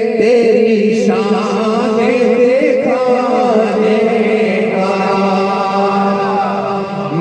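Urdu naat sung through a PA sound system, the voice holding long, wavering melodic notes without clear words over a steady drone.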